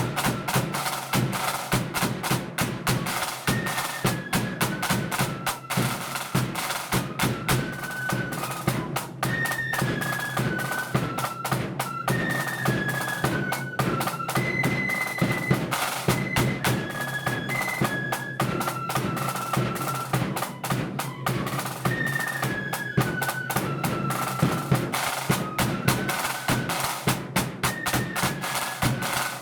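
Marching flute band playing a tune: a single melody line on flutes over rapid snare drumming and a steady bass drum beat.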